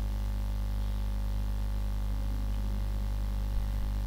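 Steady low electrical hum with a faint hiss underneath, typical of mains hum picked up by the recording setup.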